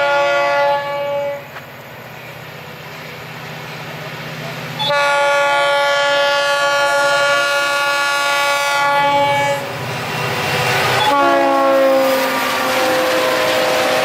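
Train horn blowing in long chord blasts as a train passes close by: one blast ends under a second in, a long blast runs from about five to nine and a half seconds, and another starts about eleven seconds in and drops in pitch as the locomotive goes past. The rumble and clatter of the rolling train grow toward the end.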